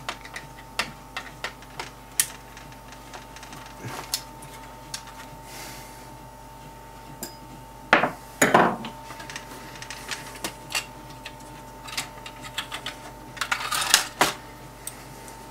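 Light clicks and clinks of a screwdriver and small screws against the plastic chassis and circuit boards of a Pioneer CDJ-800 mk2 being taken apart, with louder handling rustles about eight seconds in and again near the end. A faint steady whine runs underneath.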